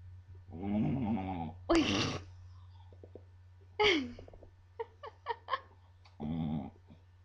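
Scottish Terrier growling and grumbling in several short, wavering voice-like calls: the teased dog's 'talking'. One call slides down in pitch, and a few short clicks fall between the calls.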